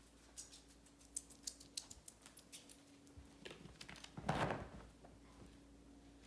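Faint clicks and taps from small objects being handled, with a brief louder rustle a little past four seconds in.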